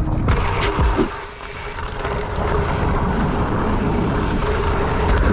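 Wind rushing over the helmet or handlebar camera microphone, with the mountain bike's tyres rumbling over a dirt trail as it rolls along. The noise dips briefly about a second in, then holds steady.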